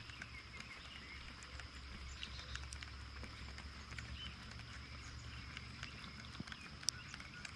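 Faint outdoor ambience while the jig sits: a steady thin high-pitched drone over a low hum, with scattered soft ticks and one sharp click about seven seconds in.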